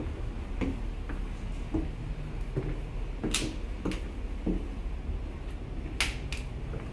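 Footsteps going down a wooden staircase, about one step every two-thirds of a second, with two sharp clicks about three and six seconds in, over a steady low hum.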